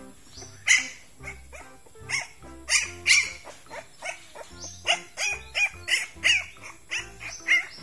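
Young Thai ridgeback puppy crying in short, high-pitched yelps again and again, coming faster in the second half, over background music.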